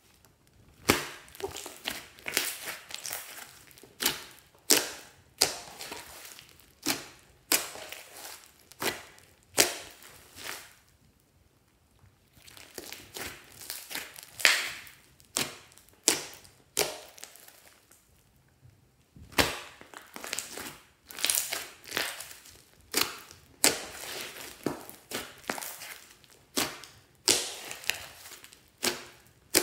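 Slime being squeezed and poked by hand, giving a string of sharp pops and squelching clicks, about one or two a second, with two short pauses.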